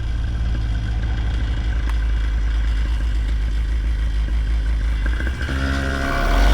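Paramotor engine running at low throttle with a steady low throb, then picking up revs with a rising pitch about five and a half seconds in.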